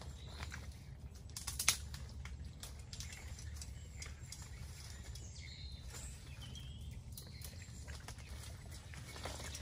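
Outdoor ambience with a few faint bird chirps over a steady low rumble, and a sharp click near two seconds in.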